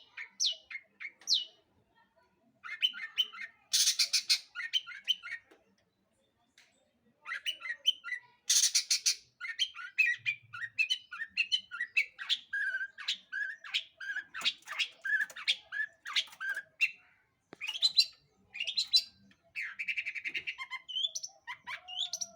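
Long-tailed shrike (cendet) in full song: a few sharp downward-sweeping whistles, harsh raspy bursts, then a long, fast run of varied chattering notes with brief pauses between phrases.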